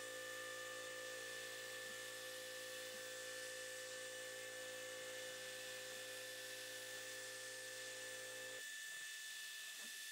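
CNC milling machine's spindle running while a three-flute carbide quarter-inch end mill profiles an aluminium plate. It gives a steady hum with a high whine over it. The lower part of the hum drops away about eight and a half seconds in, and the whine carries on.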